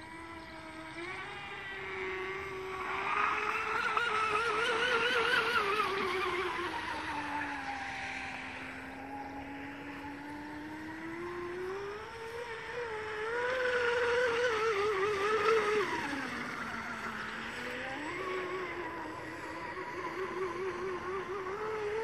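Electric RC speedboat motor whining at speed on a 6S battery, its pitch rising and falling over and over as the throttle opens and closes. The tone wavers quickly while the boat runs flat out.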